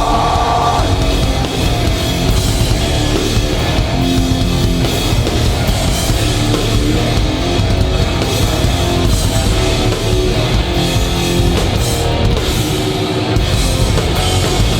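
Hardcore punk band playing live at full volume: distorted electric guitars, bass and drum kit, with no vocals.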